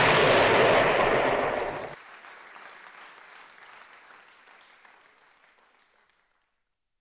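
A sudden loud rush of dense, crackling noise that holds for about two seconds, drops off sharply, then fades away over the next few seconds.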